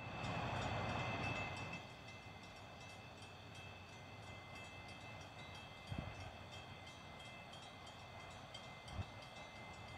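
Faint night ambience: a steady high-pitched trilling of night insects, with a soft rush of noise in the first two seconds and a few low thumps.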